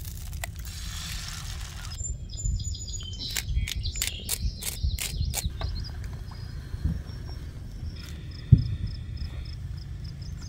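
Birds chirping outdoors in quick high bursts, then a repeated high chirp about three times a second near the end, over a low wind rumble on the microphone. A steady hiss fills the first two seconds.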